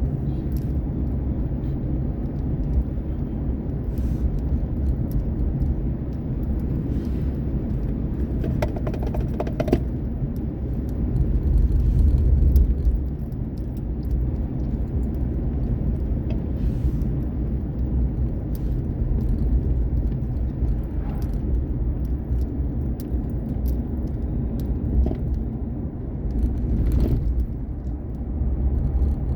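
Vehicle driving: a steady low road-and-engine rumble that swells louder for a couple of seconds near the middle, with a few light knocks and rattles.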